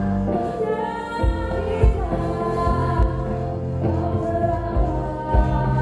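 Background music with a singer's voice carrying a melody over steady bass notes.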